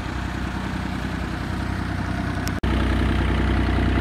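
Diesel engines of compact excavators running steadily at idle. About two and a half seconds in, the sound drops out for an instant and comes back louder.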